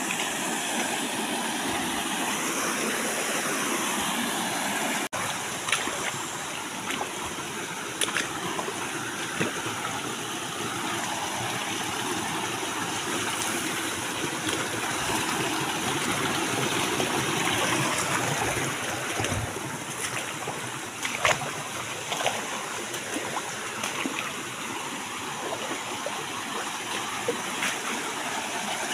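Shallow rocky stream flowing and babbling steadily over stones, with a few short knocks now and then.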